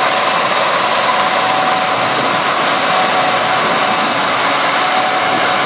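Gleaner combine harvester and tractor-drawn grain cart running during corn harvest: steady, unbroken machine noise with a faint high whine.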